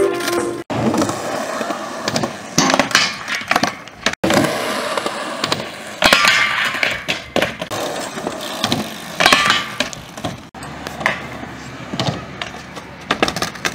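Skateboard wheels rolling on concrete, with repeated sharp clacks of boards popping, hitting and landing. The sound breaks off abruptly three times.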